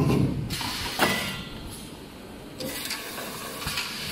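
Toilet paper rewinding and embossing machine running: steady mechanical noise broken by loud hissing rushes, the first starting suddenly, another about a second in and more from a little past two and a half seconds.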